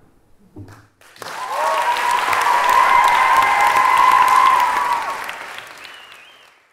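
Audience applauding and cheering at the end of a dance performance. The applause starts about a second in, swells, then fades away near the end.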